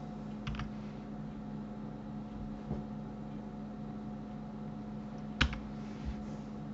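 A few separate clicks from a computer keyboard and mouse, the loudest about five and a half seconds in, over a steady low hum.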